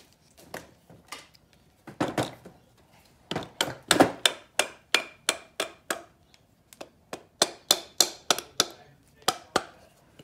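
Repeated sharp knocks as a stubborn crankshaft assembly is worked loose from a small two-stroke outboard's crankcase block: a few scattered knocks, then a steady run of about three a second from a few seconds in, loudest near the start of the run. The crank is stuck, and the owner thinks it is no good.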